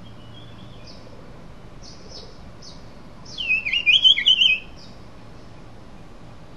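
A songbird calling: a few short, high chirps, then a loud, fast, warbling phrase about three and a half seconds in that lasts about a second, over a steady faint hiss.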